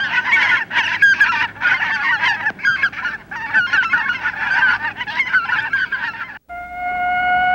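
A small flock of domestic ducks quacking in a dense, continuous chatter, cut off sharply about six and a half seconds in. A steady held tone follows.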